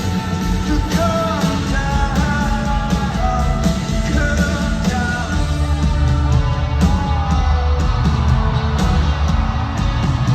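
Live rock band playing a song, with a sung vocal line over a steady beat and heavy bass.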